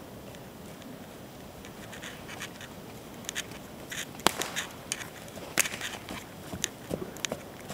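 Hoofbeats of a Friesian x Percheron draft-cross horse trotting on the arena's sand footing. After a quiet start, an uneven scatter of sharp thuds and clicks begins about two seconds in and grows loudest around the middle as the horse passes close.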